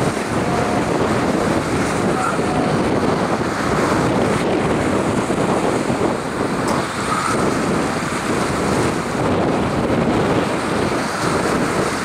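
Storm wind blowing hard across the microphone over heavy sea surf, a loud steady rush with no break.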